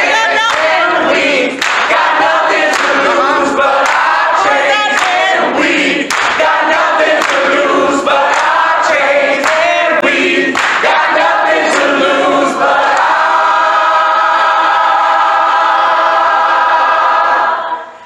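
Song with a group of voices singing. About thirteen seconds in they settle on one long held chord, which cuts off just before the end.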